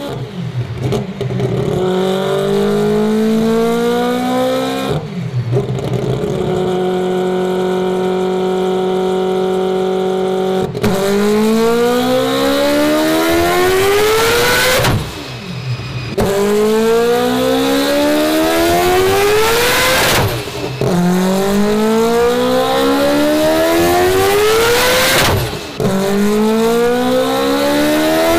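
Turbocharged four-rotor rotary engine of an all-wheel-drive Mazda RX-7 running hard on a chassis dyno. The revs climb in one long rise, hold steady for about six seconds, then climb again in four more rising pulls, each broken by a short dip.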